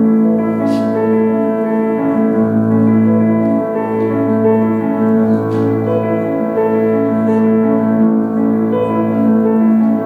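Live instrumental music on a keyboard instrument: long held chords over a steady low bass note, the upper notes changing slowly.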